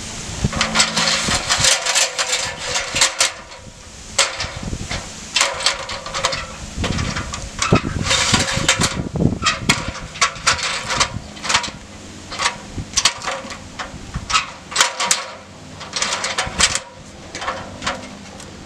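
Aluminum extension ladder being lifted and shifted sideways: repeated irregular metal clanks and knocks as its rails and rungs shift and settle.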